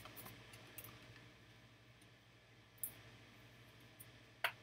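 Light clicks of a trading card and a rigid plastic toploader being handled, with two sharper clicks, one about three seconds in and one near the end.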